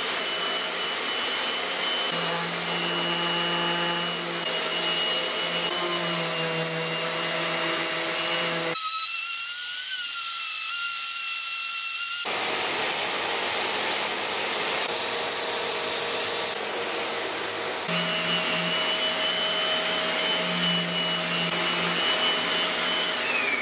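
DeWalt 125 mm random orbital sander running steadily against bare wood, taking the worn finish off a solid-wood chair seat and rocker, with a steady high whine. A shop vacuum runs with it, drawing off the dust through a hose. Near the end the sander's whine falls in pitch as it winds down.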